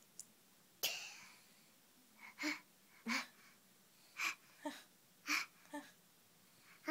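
A small child making fake coughs: a string of about seven short, breathy little coughs, the first a longer rasping one and the rest clipped 'uhu' sounds spaced half a second to a second apart.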